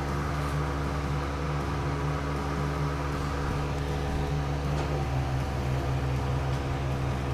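Steady mechanical hum of a running machine, holding one pitch with a stack of overtones and no change in level.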